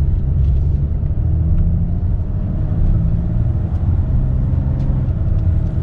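High-output 6.7 L Cummins turbo diesel in a 2019 Ram 3500 dually pickup under hard acceleration, running steadily loud with a deep, even engine note.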